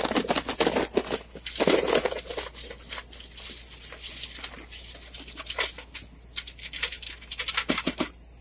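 Boiled crawfish, corn and potatoes pouring out of a perforated metal boil basket into a plastic tub: a dense clatter of shells and pieces landing, loudest at the start and again about two seconds in, then thinning to scattered rattles as the last pieces are pushed out with a metal spoon.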